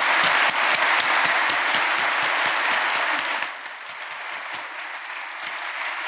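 Audience applauding: dense clapping that drops off sharply a little past halfway, leaving thinner scattered claps.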